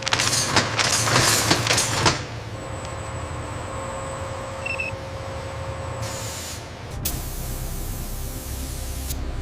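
Factory machinery: several loud bursts of hissing in the first two seconds, then a steady mechanical hum with a faint high whine.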